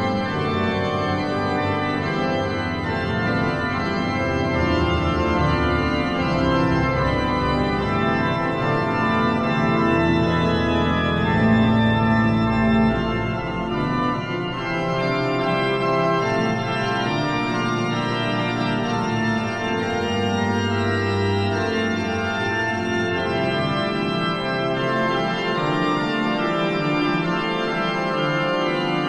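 Pipe organ music played on the Hauptwerk virtual pipe organ, a sampled pipe organ: sustained chords and moving lines. The deepest bass notes thin out about halfway through.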